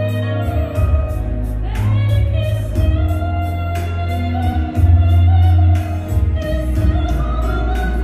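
Female vocalist singing a slow, held melody with vibrato over amplified band music with heavy bass and a steady ticking beat, played through a concert hall's sound system.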